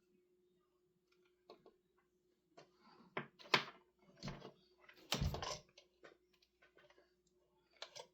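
Irregular clicks and knocks of objects being handled, a few louder ones near the middle, over a faint steady hum.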